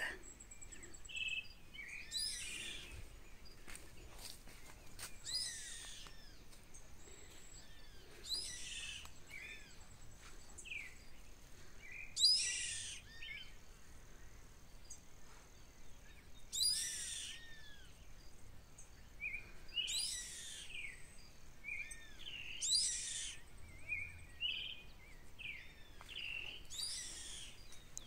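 A bird of prey, which the speaker calls an eagle, calling from a treetop: a high call about a second long, repeated every three to four seconds, which she takes as the bird getting angry. Smaller birds chirp in between.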